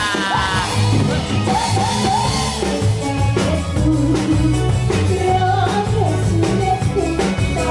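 Live band playing an upbeat song through a PA, with a woman singing into a microphone over electric keyboard, drum kit and guitar.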